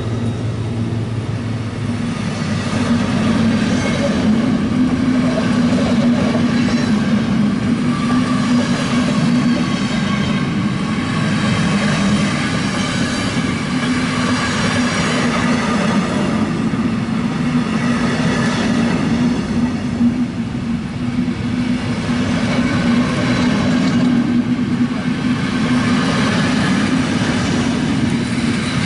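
A train of passenger coaches rolling past close by: a steady rumble of wheels on the rails with a steady low hum.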